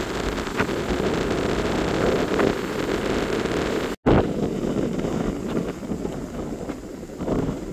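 Tropical-storm-force wind buffeting the microphone over heavy surf breaking on the beach in a hurricane. The sound cuts out for an instant about four seconds in, then returns in uneven gusts.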